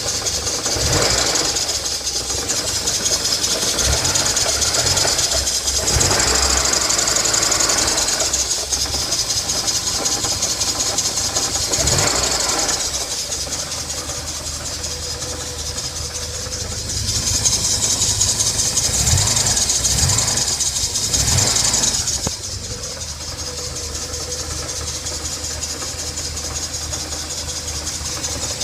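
1984 Porsche 944's 2.5-litre four-cylinder engine running after a cold start, with a strong high hiss and rattle over the engine note that swells louder twice and then settles back. These are the odd noises the owner is showing, with no cause given.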